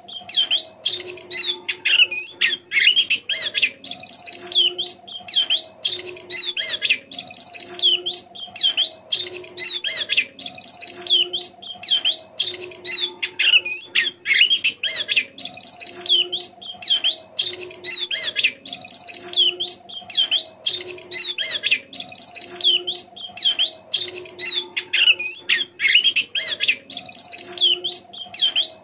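Pleci (white-eye) twittering continuously: a soft, rapid stream of high chirps and short rising and falling whistles. A fainter low call repeats underneath every second or so.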